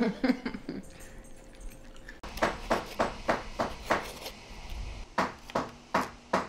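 After about two seconds of quiet, a small hand plane shaves the edge of a thin wooden strip in quick, short strokes, about three a second, with a brief pause midway.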